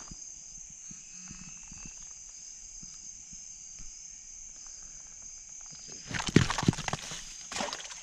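Night insects chirring steadily at a high pitch. About six seconds in, a burst of scraping and knocks, the loudest sound, with a shorter one near the end, as a hooked turtle is held down under a boot.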